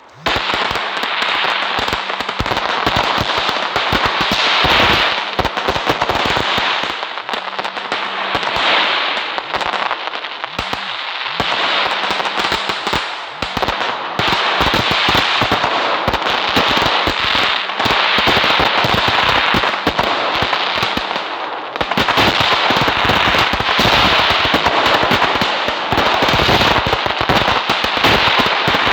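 Firecrackers going off in a rapid, continuous crackle of pops. About three-quarters of the way in the crackle turns fuller and deeper.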